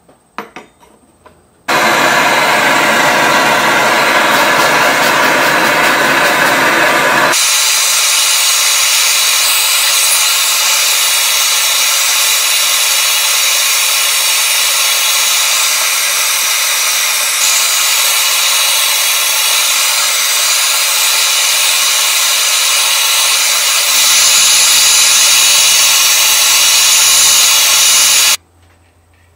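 Handheld gas torch burning with a loud, steady hiss as its flame heats a silver spoon. The hiss turns thinner and higher about seven seconds in and cuts off suddenly near the end. A couple of sharp clicks come just before it starts.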